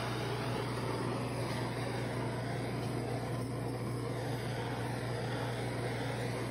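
Handheld gas torch running with a steady flame hiss as it is swept over wet acrylic pour paint to pop air bubbles on the surface, over a steady low hum.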